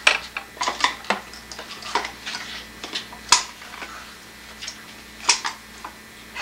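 Plastic containers, lids and cups clattering and knocking together as a toddler rummages in a kitchen drawer: irregular clicks and taps, the sharpest just after the start, about three seconds in and about five seconds in.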